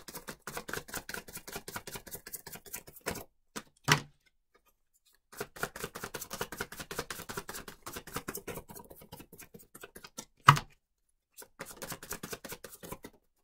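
Tarot cards being shuffled by hand: rapid runs of soft card flicks in three spells with short pauses between. There are two sharper taps, one about four seconds in and a louder one about ten and a half seconds in.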